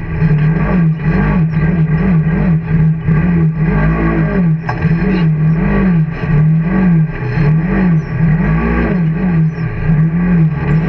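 Can-Am side-by-side's engine revving up and down over and over, about once a second, under hard throttle through sand dunes.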